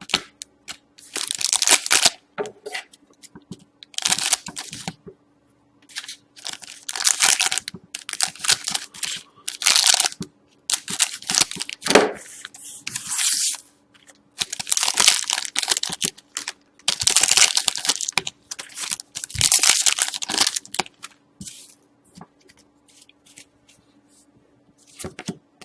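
Wrappers of 2012-13 Certified hockey card packs being ripped open and crinkled in a series of short tearing bursts. The bursts become sparse near the end.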